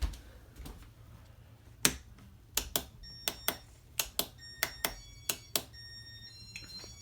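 A quick series of sharp clicks from buttons being pressed on a Casablanca Intellitouch fan control, entering the fan's demo mode, with short high electronic beeps at several pitches joining in from about halfway.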